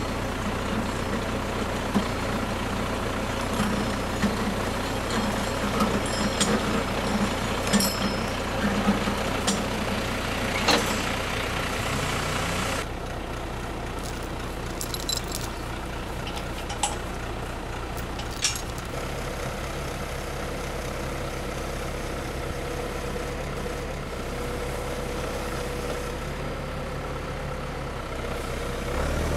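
John Deere compact tractor engine running steadily, powering a three-point PTO skidding winch that drags a chained log in, with scattered sharp clicks and clinks from the chain. A little under halfway through the sound drops slightly in level and runs on steadier.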